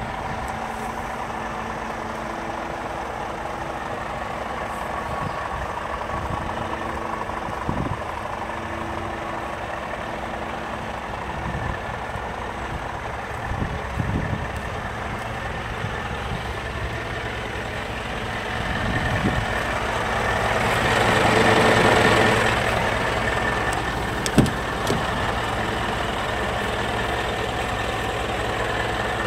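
Scania R440 truck's 13-litre straight-six diesel idling steadily. About two-thirds through, a louder noisy swell rises and fades, and a sharp single knock follows a few seconds later.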